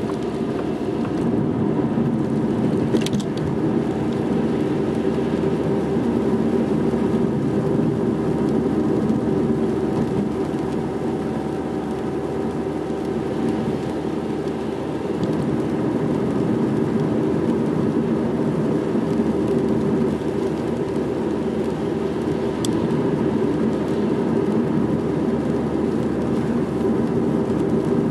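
Steady car driving noise heard from inside the cabin: engine and tyres running on a rain-wet road, with two brief clicks, one a few seconds in and one near the end.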